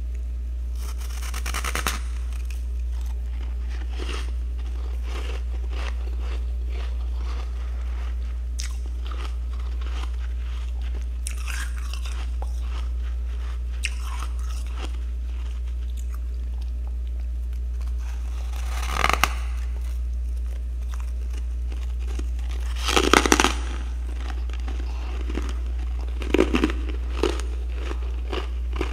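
Packed freezer frost crunching as it is bitten and chewed: a handful of loud, spread-out crunches, the biggest in the last third, with quieter crackles between. A steady low hum runs underneath.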